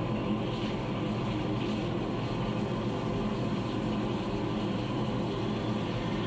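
Mazak Variaxis i-800 five-axis machining center running a 25 mm gun drill at 1,273 rpm into a metal block under flood coolant. The result is a steady machining noise with a low hum and the hiss of coolant spray.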